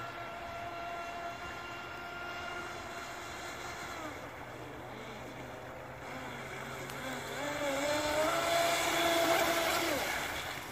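Brushless electric motor of an Aquacraft Revolt 30 RC speedboat whining at speed. Its pitch wavers from about four seconds in, and it is loudest near the end as the boat passes close, then drops away.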